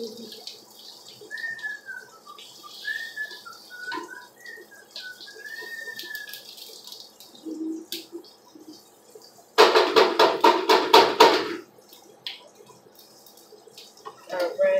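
Someone whistling a short wandering tune over the faint hiss of oil frying in a pan. About ten seconds in, a loud buzzing rattle lasts about two seconds.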